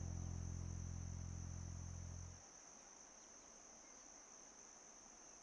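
A low, steady hum that stops about two and a half seconds in, leaving a faint, steady high-pitched whine over faint hiss.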